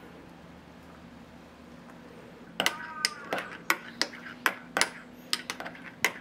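A metal teaspoon clinking against the inside of a glass tumbler while stirring yogurt and amazake together. About two and a half seconds in, a quick run of sharp, ringing clinks begins, about three a second.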